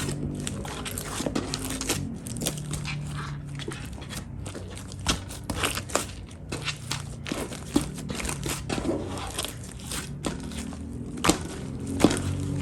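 Slime being squished and pressed by hand, making irregular sticky clicks and pops, over a low hum.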